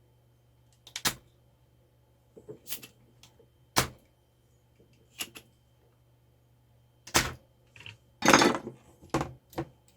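Scattered sharp clicks and knocks, about eight in all, with a longer scraping rattle a little past eight seconds in: tools and plastic parts of a mechanical keyboard handled as a faulty key switch is desoldered and worked out of the board.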